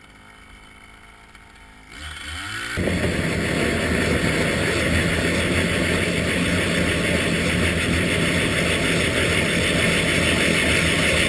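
Gas-powered ice auger idling low, then revving up about two seconds in and running steadily at high speed as the bit drills through the ice.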